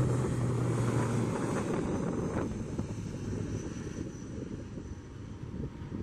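ATR 72-600 twin-turboprop airliner on its takeoff roll, its engines and propellers making a low steady drone over a noisy rush. The sound fades as the aircraft pulls away down the runway.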